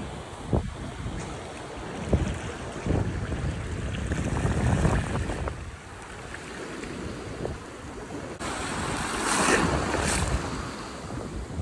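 Small waves washing over the shallows at the water's edge, with wind buffeting the microphone. A louder splashing rush of water comes about eight seconds in and lasts about two seconds.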